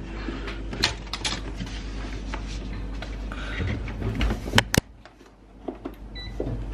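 Handling noises around a multicooker: scattered knocks and clicks of the pot, lid and containers being moved, with two sharp clicks a little past the middle and a faint short beep near the end.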